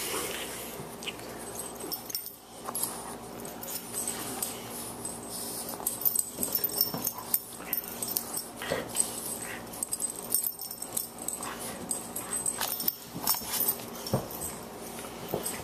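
A boxer puppy and an adult boxer play-fighting: whining and growling dog noises mixed with many short scuffling sounds of bodies and paws tussling.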